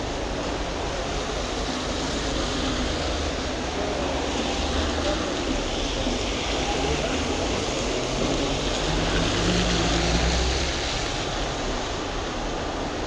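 Street noise in the rain: traffic on a wet road, a steady hiss with a low rumble, swelling as a vehicle passes about nine to ten seconds in.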